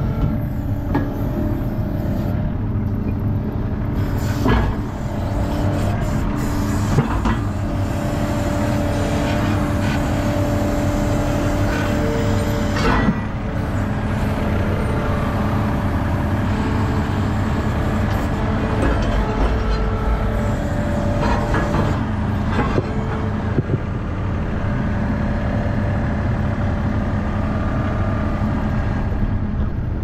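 ASV RT-40 tracked skid steer's diesel engine running steadily, heard from inside the cab, with a few sharp clanks and knocks as the machine works.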